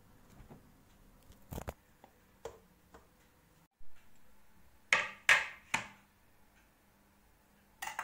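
Kitchen handling knocks: one soft knock, then, about five seconds in, three sharp clacks in quick succession and another near the end, as a wooden cutting board and a knife are set down on a granite countertop.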